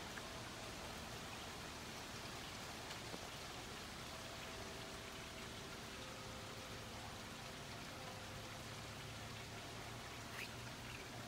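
Steady hiss of rain falling and dripping. Over it, a few faint, long ringing tones from metal tube wind chimes stirred by the breeze.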